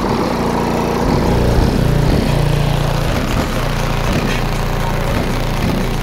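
Loud, deep bass music played through a DS18 EXL-XXB12 12-inch car subwoofer, heard from outside the car. The low bass notes step to a new pitch every half second to a second.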